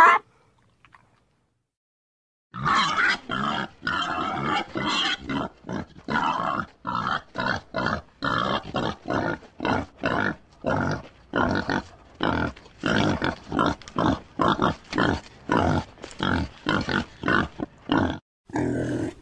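Pig grunting over and over in short, quick grunts, about three a second. The grunting starts about two and a half seconds in after a brief silence and stops shortly before the end.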